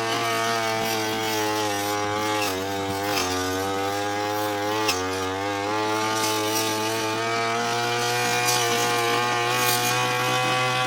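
Petrol brush cutter running at high speed while cutting tall, thick grass. Its pitch dips briefly a few times as the engine bogs under the load, then recovers.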